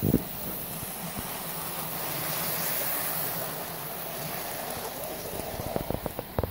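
Hornby model diesel locomotive and its wagons running on the track, the motor whirring and wheels rolling on the rails, growing louder as the train passes close by about three seconds in and then fading. A few sharp clicks near the end.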